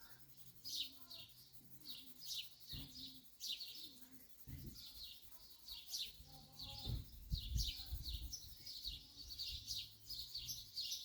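Small songbirds chirping in quick, short, repeated calls, with a few low thumps about seven seconds in.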